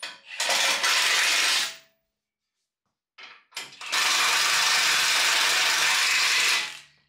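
Cordless impact wrench running the bumper mounting bolts in, in two bursts: one of about a second and a half near the start, and a longer one of about three seconds later on, each with short trigger blips just before.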